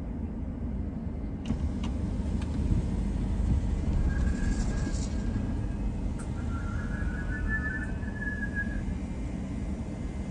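Low, steady rumble of a car's engine and tyres heard inside the cabin as the car idles and creeps forward in a line. A faint high thin tone sounds twice around the middle.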